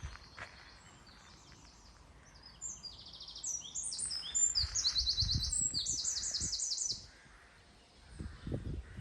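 Songbirds singing: several overlapping high, fast trills and chirps, loudest from about three to seven seconds in. A few low rumbling thumps come underneath, around the middle and near the end.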